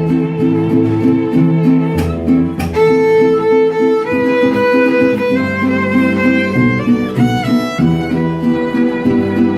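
Mexican band music played live: a violin carries a slow melody of long, wavering notes over strummed guitar chords in a steady rhythm, with deeper bass notes underneath.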